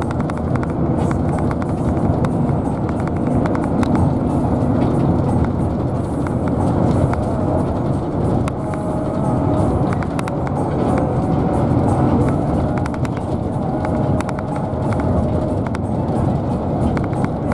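Steady rumble of a vehicle travelling on the road, with music playing underneath.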